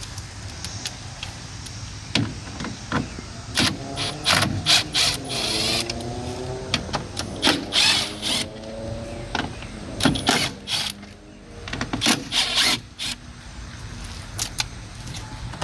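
A tool backing out the 5 mm screws that hold a pickup's door speaker: a string of sharp metallic clicks and clacks, with a short whirr that slides in pitch a few seconds in.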